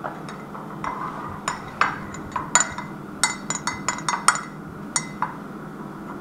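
Metal spoon clinking against the inside of a ceramic mug while stirring cocoa: about a dozen sharp, uneven clinks, coming thickest in the middle.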